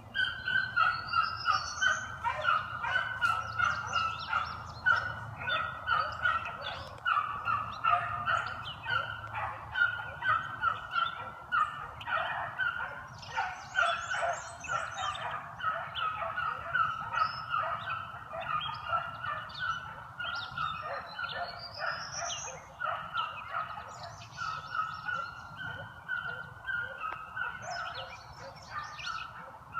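A pack of beagles baying on a trail: many short, overlapping bays and chop barks, several a second, without a break.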